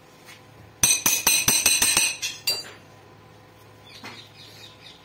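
Steel knocking against steel on a power press die: a quick run of about nine sharp, ringing metallic clinks starting a little under a second in, then two more.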